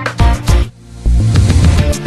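Background music: an electronic track with a steady beat, briefly dropping out a little under a second in before the beat comes back.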